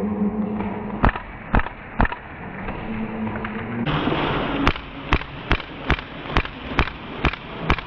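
Airsoft gun firing: sharp single shots, a few spaced ones and then a steady run of about two shots a second.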